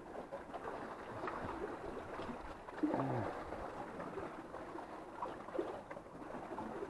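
Sea water faintly washing and lapping, a steady low wash, with a brief faint call that falls in pitch about three seconds in.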